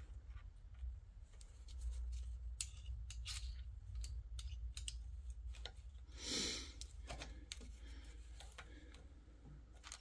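Hand tap cutting threads into a drilled hole in the steel side panel of a JQ400 mini skid steer: faint, scattered scraping clicks as the tap wrench is turned, with a brief rustle about six seconds in, over a low steady hum.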